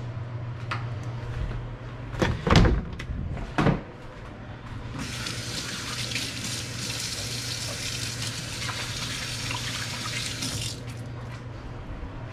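Kitchen faucet running into a stainless steel sink while hands are rinsed under the stream. It starts about five seconds in and is shut off abruptly about a second and a half before the end. Before it come a few knocks and thumps, the loudest about two and a half seconds in.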